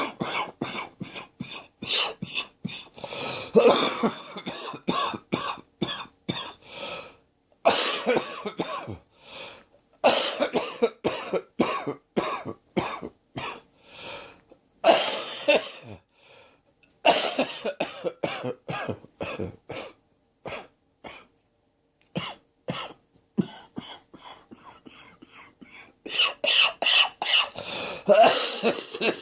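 A person coughing in a long fit of harsh, rapid coughs, a throat-infection cough: runs of many quick coughs broken by short pauses for breath.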